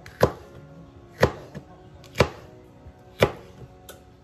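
Kitchen knife slicing straight down through yellow bell pepper onto a plastic cutting board: four sharp knocks, about one a second.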